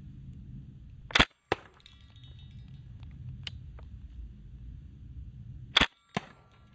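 Two shots from a Tippmann .68 caliber pre-charged pneumatic air rifle firing pepper balls, sharp air-powered cracks about four and a half seconds apart. Each shot is followed about a third of a second later by a second, weaker crack. A low rumble runs underneath.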